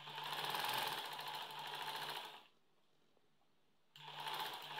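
Sewing machine stitching fabric in two runs: about two and a half seconds of steady stitching, a pause of over a second, then it starts stitching again near the end.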